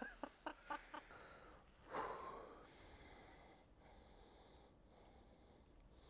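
Near silence, with a few faint clicks in the first second and a short breath about two seconds in.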